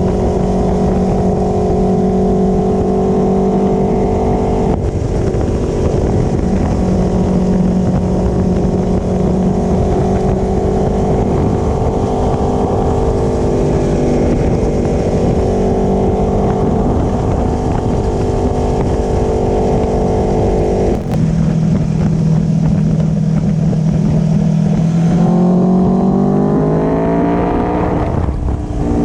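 Aprilia Tuono V4 Factory's V4 engine through an Akrapovic slip-on exhaust, with exhaust valve and catalytic converter in place, heard on board from the passenger foot peg. It holds a steady cruising note for about twenty seconds, drops in pitch on an upshift, then rises in pitch under acceleration before another upshift near the end. Wind noise runs under it.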